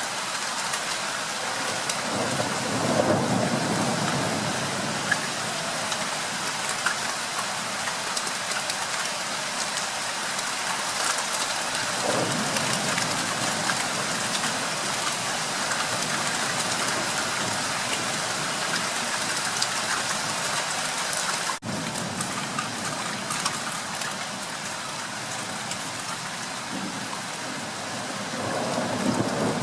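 Steady rain falling at the start of a thunderstorm, with a few swells of low rumbling, about two seconds in, near the middle and near the end. The sound cuts out for an instant about two-thirds of the way through.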